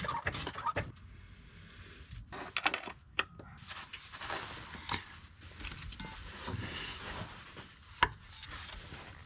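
Hand tools working on the driveshaft flex-disc bolts: scattered metallic clicks and knocks with scraping and rubbing, and one sharp click about eight seconds in.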